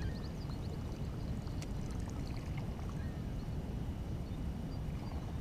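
Steady low outdoor rumble of wind and water around an open bass boat, with a few faint, short bird chirps.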